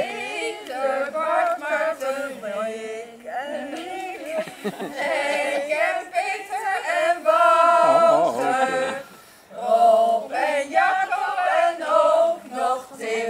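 A small group of women singing a song together in Dutch, with a brief break about nine seconds in.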